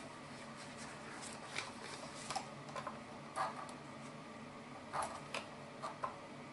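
Light clicks and taps of multimeter probe tips knocking against the metal terminals of an electric water heater's heating element while its continuity is checked, about a dozen sharp ticks at uneven intervals over a faint steady hum.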